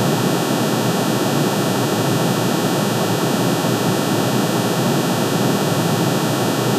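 Synthesized drone of many sine waves added together, one for each line of aluminium's atomic emission spectrum shifted into the audible range. It sounds as a steady, dense, noise-like roar with a hiss above it, unchanging throughout.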